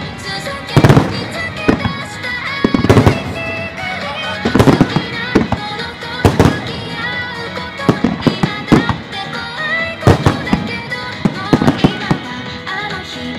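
Fireworks shells bursting overhead, about one sharp bang a second at an irregular pace, over recorded music that is loud throughout: a music starmine, fireworks fired in time with a soundtrack.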